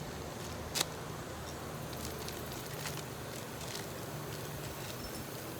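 Steady low hum of shop background with a single sharp click about a second in and a few faint light ticks, as carburetor parts and tools are handled on the bench.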